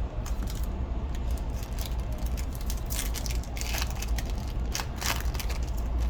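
Foil booster pack being torn open and crinkled by hand, a dense run of crackles and clicks that is thickest in the middle, over a steady low hum.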